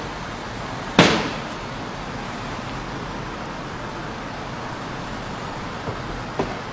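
One loud bang about a second in: a blow struck on the body of a Mercedes S63 sedan. Steady street traffic noise runs underneath, with a small knock near the end.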